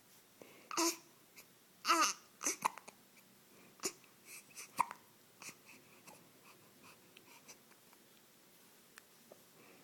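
A young child hiccupping: a string of short hiccups roughly a second apart, the first two with a high squeaky voice in them, thinning to small faint clicks in the second half.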